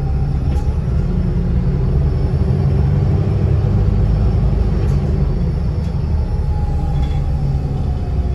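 Interior of a London bus on the move: a steady low engine and road rumble, with a faint whine that falls in pitch near the end.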